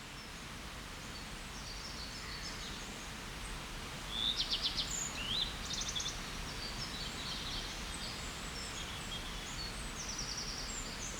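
Small songbirds singing in short, high trilling phrases, with a cluster about four to six seconds in and another near the end, over a steady outdoor hiss.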